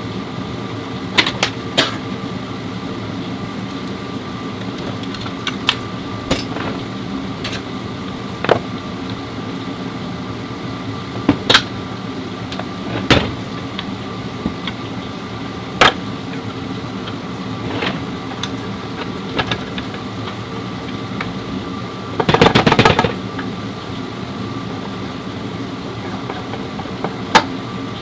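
Metal parts and tools clinking and knocking now and then over a steady machine hum, with about a second of rapid rattling about 22 seconds in, during work on an automatic transmission.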